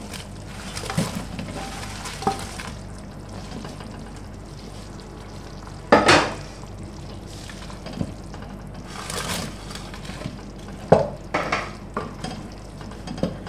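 A wooden spatula stirring fried pakoras into a metal pot of simmering kadhi (yogurt and gram-flour curry), over a steady bubbling hiss. The spatula knocks against the pot once about six seconds in and a few more times near the end.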